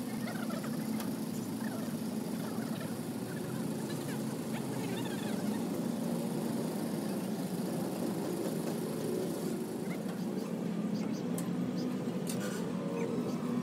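Steady engine hum with birds chirping over it through the first half, and a few sharp crackles about ten to twelve seconds in.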